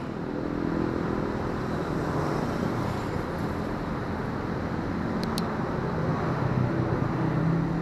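Road traffic passing close by: a steady rumble of vehicle engines and tyres that swells near the end, with two faint high clicks about five seconds in.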